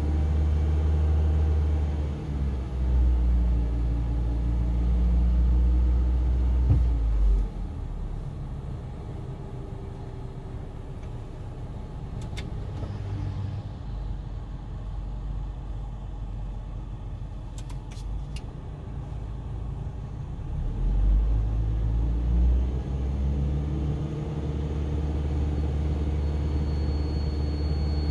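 Toyota Tercel running with the air conditioning on, making a low droning hum: the abnormal A/C noise. The drone is loud at first, cuts out after about seven seconds, and comes back about twenty seconds in. A few sharp clicks are heard in between.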